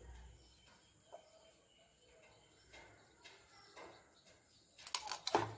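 Mostly quiet, with a few faint short sounds. About five seconds in, a metal spoon scrapes and clicks briefly against a frying pan while stirring spice-coated green chillies.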